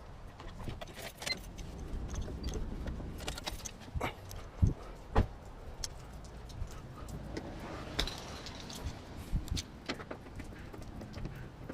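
Light metallic clinks and knocks at irregular intervals, a few of them louder, over a low steady rumble.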